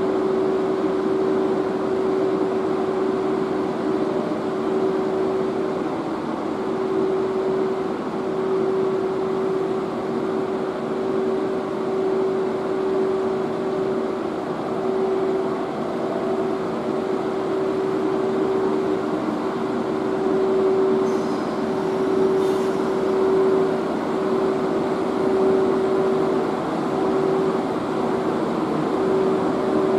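EF81 electric locomotive standing with its onboard machinery running: a steady hum with one held tone over an even rushing noise.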